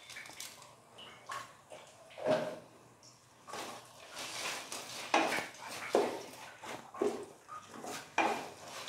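Wooden spatula stirring onions and tomatoes in a stainless steel pot, in irregular scraping strokes with short quiet gaps between them.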